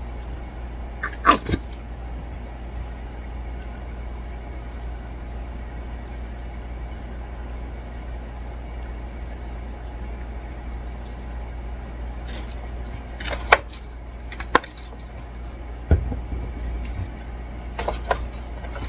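Barbecue sauce bottle being squeezed and handled over a pan of ribs, giving a few short clicks and knocks, one about a second in and several near the end, over a steady low hum.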